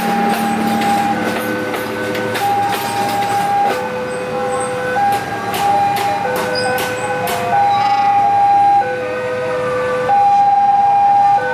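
Passenger train coaches' wheels squealing on curved track through the station points, shifting between a few steady high pitches, with clanks and clicks as the wheels cross rail joints and switches. The squeal is loudest near the end.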